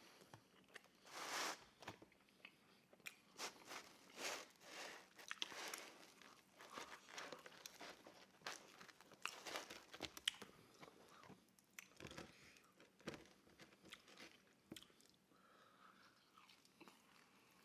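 Close-miked biting and chewing of pizza, with irregular crunches of crust, thinning out near the end.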